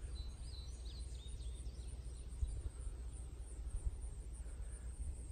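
Outdoor ambience: a steady low rumble of wind on the microphone, with a few short, high bird chirps in the first second and a half and a faint one or two later.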